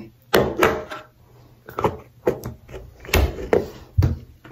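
A series of about seven irregular knocks and bumps, with handling and rubbing noise close to the microphone. The loudest, deepest bumps come about three and four seconds in.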